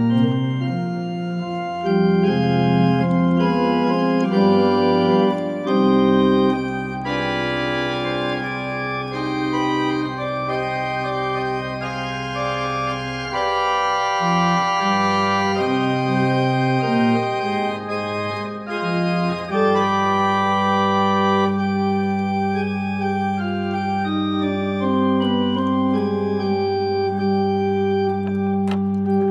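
1830 John Abbey mechanical-action pipe organ playing sustained chords under a moving upper line, with long held bass notes in the middle and latter part.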